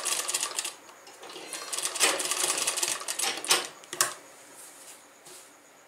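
Electric-motor-driven sewing machine stitching a folded hem: a short run, then a longer run of about two seconds, stopping with a sharp click.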